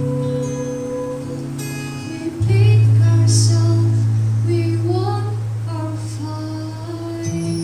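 A group singing a song over sustained instrumental accompaniment. A deep held chord comes in about two and a half seconds in and the music gets louder.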